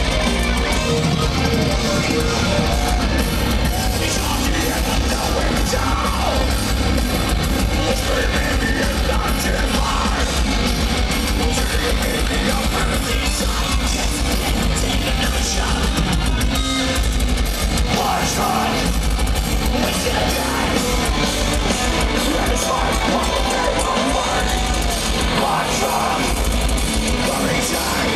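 Melodic death metal band playing live, recorded from within the crowd: distorted electric guitars, keyboards and drums, with harsh vocals at times, the whole mix loud and dense throughout.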